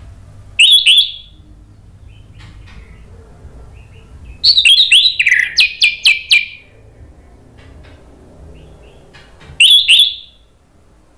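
Orange-headed thrush calling and singing: a short two-note chirp about half a second in, then a burst of rapid, varied song notes from about four to six and a half seconds, and another short two-note chirp near the end.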